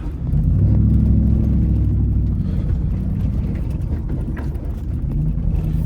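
Third-generation Dodge Ram's Hemi V8 pulling under load off-road, heard from inside the cab. The engine note swells just after the start and then holds steady.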